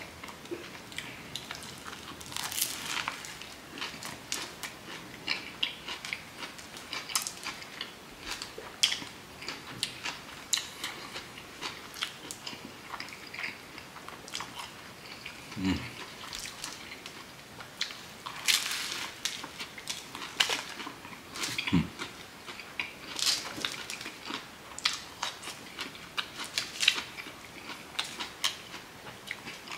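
Close-up biting and chewing of a toasted wheat-bread sub sandwich, the crunchy crust crackling in repeated bursts between quieter chewing.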